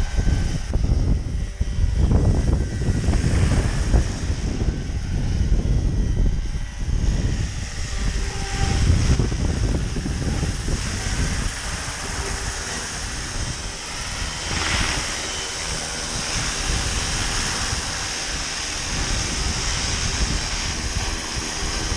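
Roban 700-size Black Hawk scale RC helicopter flying, its rotors and drive giving a steady high whine with faint steady tones underneath. Wind buffets the microphone with a gusty low rumble, heavier in the first half.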